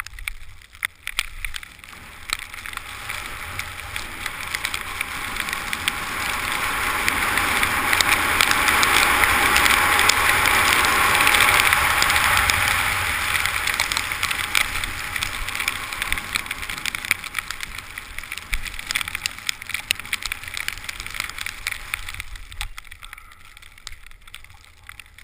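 Wind rushing over the microphone and skis sliding on snow during a downhill run. The rush builds to a loud, steady peak about eight to twelve seconds in and eases off as the skier slows near the end.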